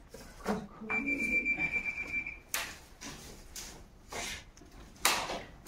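A metal detector sounds one steady high-pitched tone for about a second and a half, signalling a metal target in the ground. It is followed by several short scrapes of hands digging through loose soil and brick rubble.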